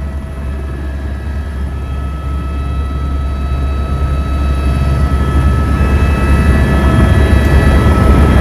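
Helicopter engine and rotor running, a deep steady hum with a high whine over it, growing steadily louder.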